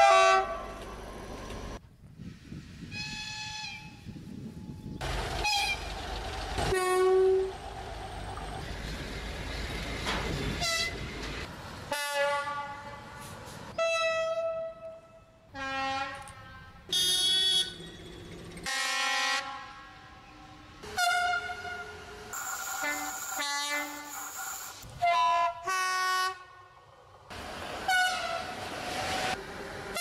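A quick succession of locomotive horn blasts from many different trains, cut one after another: more than a dozen short blasts, each a fraction of a second to about a second long, at different pitches, several sounding two notes in turn. The running noise of the trains comes and goes underneath.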